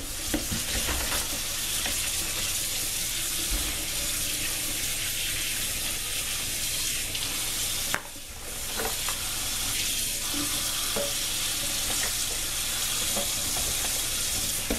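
Kitchen tap running into a plastic bowl of raw green peanuts in the shell in a stainless steel sink, while hands stir and rub the wet peanuts to wash them, with occasional light clicks. The sound drops briefly about halfway through, then carries on.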